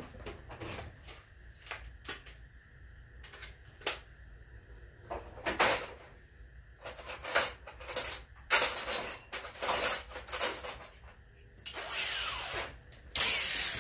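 Tools being rummaged and handled, a scattered run of clanks and knocks with a few longer rattling stretches in the second half.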